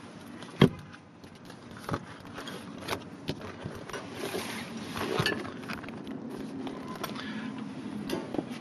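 Handling noise as a car's original tool kit is closed up and put away: a sharp knock about half a second in, then scattered clicks and light metal clinks over a steady low background hum.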